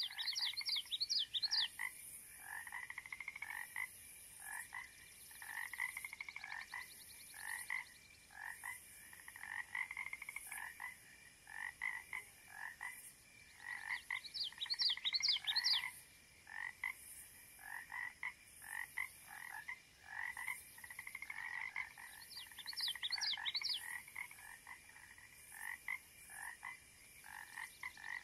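Marsh soundscape of many frogs calling over and over in a chorus. A quick series of high chirps breaks in three times: at the start, about halfway and near the end.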